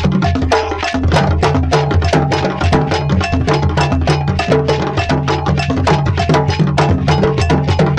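Percussion-driven music: a fast, steady run of sharp wood-block-like clicks and drum strokes over a bass line and short melodic notes.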